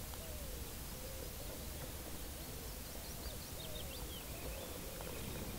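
Faint birdsong from the riverbank: a low, wavering calling runs throughout, and a higher twittering song comes in about three seconds in. Under it sits a low rumble.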